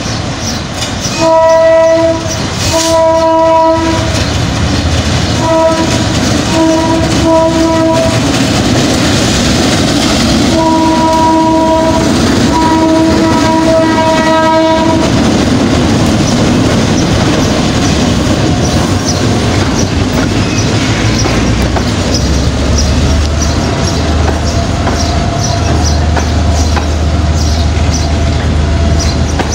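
EMD GR12 diesel locomotive sounding its horn in three pairs of blasts as it approaches, the loudest near the start. It then rolls past with its train of container wagons, wheels clacking over the rail joints.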